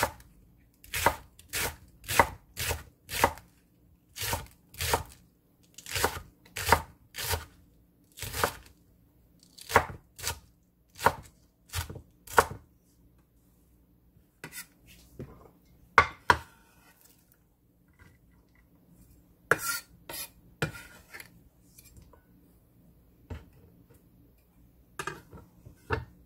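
Chef's knife chopping green onion on a wooden cutting board: sharp strikes, one or two a second, for about the first half, then only a few scattered knocks.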